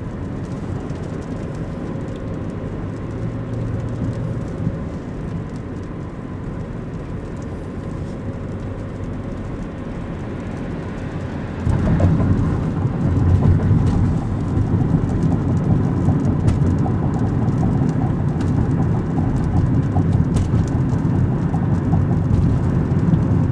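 Steady low rumble of road and engine noise inside a moving car's cabin, growing suddenly louder about halfway through.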